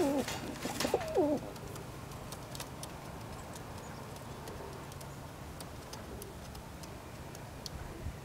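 Roller pigeons cooing: a few wavering coos in the first second and a half, then only a faint steady background with scattered light clicks.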